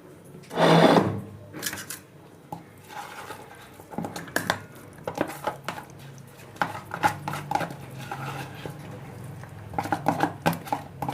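Clinks and taps of dishes and bowls while cats are fed, with a loud short burst about a second in and a run of quick clicks and taps in the second half.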